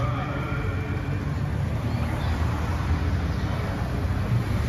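Steady low rumble of motor vehicles running on the street, a police motorcycle and cars moving slowly past, with a faint murmur of voices from the crowd.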